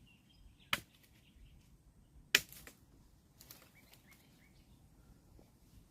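Two sharp knocks about a second and a half apart, the second louder, followed by a few faint clicks and rustles.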